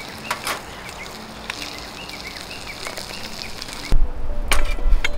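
Small birds chirping over and over in the background, with a couple of light clicks of tableware. About four seconds in, the sound turns louder, with a low rumble and sharp clinks of a metal bowl and chopsticks that ring on briefly.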